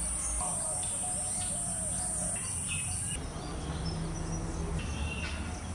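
An insect's steady, high-pitched buzz that cuts off about three seconds in, with a few bird chirps over it.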